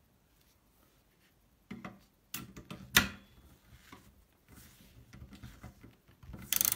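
Metal-on-metal clicks and knocks from a socket and ratchet wrench tightening the nut on a cast-iron bread slicer's blade pivot bolt, with a sharp knock about three seconds in and a louder run of ratchet clicking near the end.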